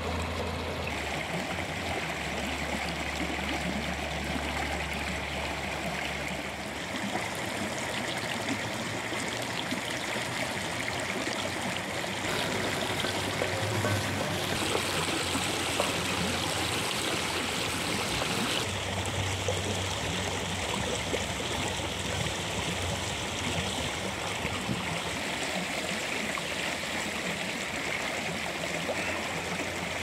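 Rushing river water, a steady rush that shifts in tone a few times.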